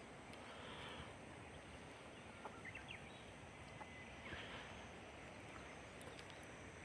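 Quiet outdoor ambience: a steady faint hiss with a few soft rustles and small faint ticks.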